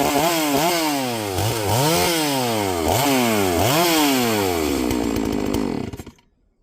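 Neotec NS 872 two-stroke chainsaw revved repeatedly off the cut: about once a second the engine pitch jumps up quickly and sinks back, until the sound drops away suddenly near the end.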